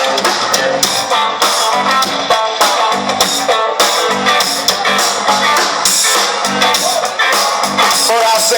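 A band playing music with guitar over a steady drum beat.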